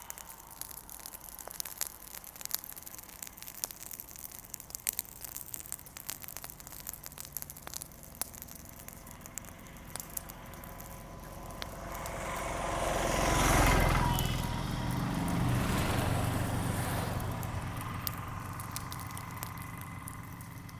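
Small fire crackling, with sharp irregular pops. Partway through, a passing vehicle rises to its loudest about 13 seconds in and fades away by about 18 seconds, while the crackling goes on beneath it.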